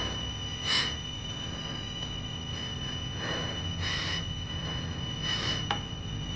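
Eerie sustained drone of a horror soundtrack: several steady high-pitched tones over a low rumble, with a few short hissing swells and one sharp click near the end.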